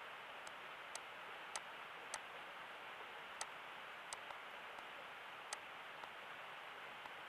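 Computer mouse clicking about eight times at irregular intervals, each a short sharp click, over a steady microphone hiss.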